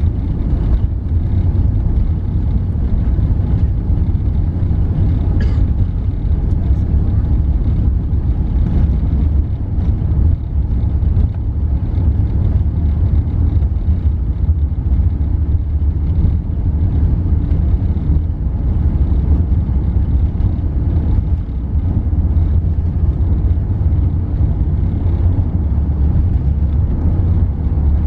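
Airbus A380 cabin noise while taxiing: a steady low rumble of the engines and the rolling gear, heard from inside near the wing.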